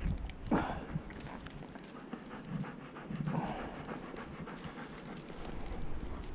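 Labrador retriever panting hard, mixed with crunching snow and crackling dry cattail stalks.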